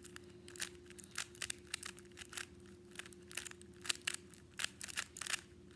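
A plastic Rubik's cube being scrambled by hand: quick, irregular clicks and clacks as its layers are twisted, several a second.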